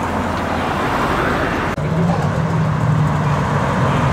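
Car engines and exhausts as cars drive slowly past one after another: a red Lexus GS passes close by, then after a brief break a steady low engine drone as the next car rolls up, growing a little louder near the end.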